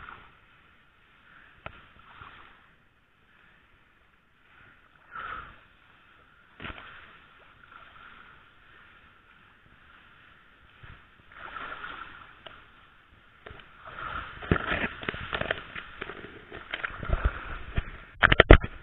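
Tall grass rustling and swishing as people push through it on foot, with wading footsteps sloshing in muddy water. The sounds come in scattered bursts at first, then grow denser and louder over the last few seconds, ending in a few sharp bumps.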